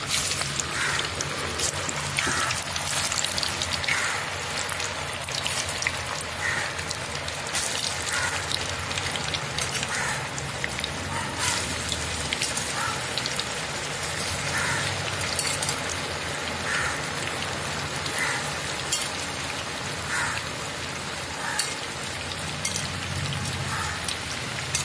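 Raw banana pieces deep-frying in hot coconut oil in an iron kadai: a steady, dense sizzle and crackle of bubbling oil.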